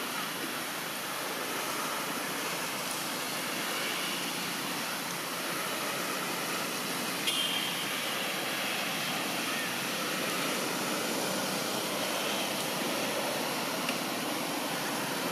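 Steady outdoor background noise, an even hiss, with one brief high-pitched sound about seven seconds in.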